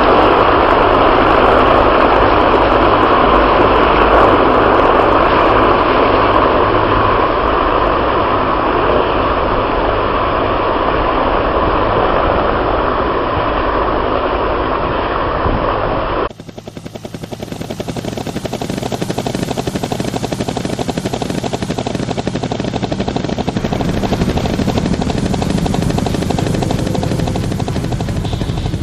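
A formation of military helicopters flying over, with a loud, steady rush of engine and rotor noise. About sixteen seconds in, the sound cuts abruptly to a quieter recording with a fast, even pulsing.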